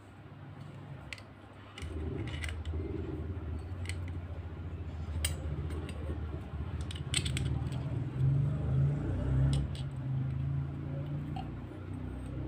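Small scattered clicks and taps of a screwdriver and metal terminal screws on a porcelain lamp socket being worked by hand. Underneath is a steady low rumble that starts suddenly about two seconds in.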